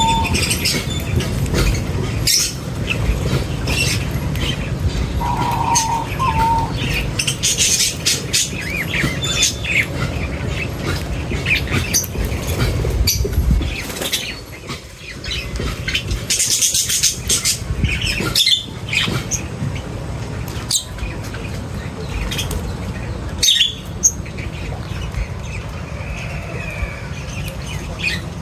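A flock of birds chirping and squawking while feeding, with frequent sharp clicks and a steady low rumble underneath. A short whistled note comes about five seconds in.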